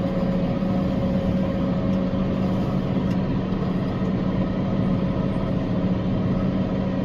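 Tractor engine running steadily at constant speed, a continuous drone with an even hum and no change in pitch.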